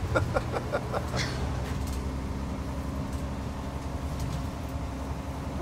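Steady low rumble of a city bus running, heard from inside the passenger cabin.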